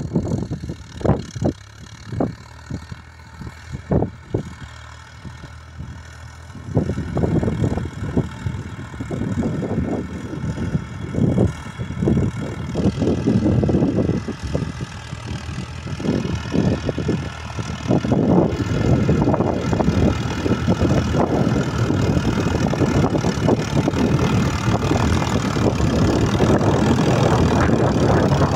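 Fiat 60-56 tractor's diesel engine running steadily under load while it pulls a plow through the soil, getting louder as it comes near, about seven seconds in and again around eighteen seconds. In the first few seconds there are a number of sharp knocks over the engine.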